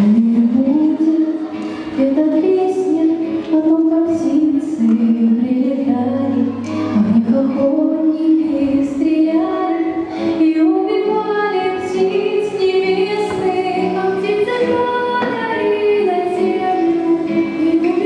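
Girls' vocal quartet singing a song in Russian into microphones over backing music, one melody line leading.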